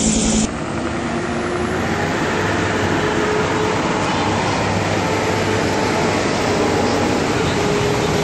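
A helicopter's rotor chop cuts off abruptly half a second in. A steady, rough engine rumble with a faint hum follows.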